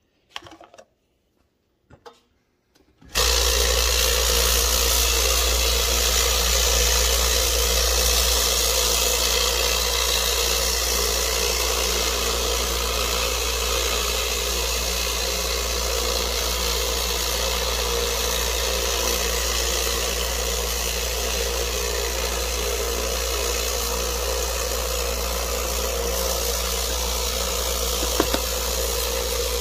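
Lot-O vibratory rock tumbler switched on about three seconds in and running steadily: a deep hum under an even rattling hiss from the agates and grit slurry shaking in the barrel.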